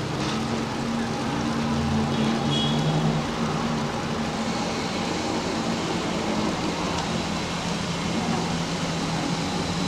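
Road traffic: motor vehicles running with a steady hum and road noise.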